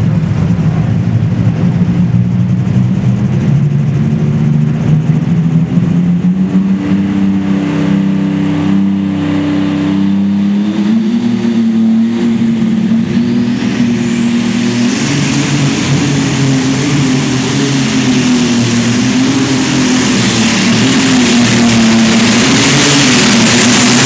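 Engine of the Woody Woodpecker modified pulling tractor running at full throttle during a pull, its pitch wavering. From about halfway it grows louder and harsher as the tractor nears, and it is loudest near the end.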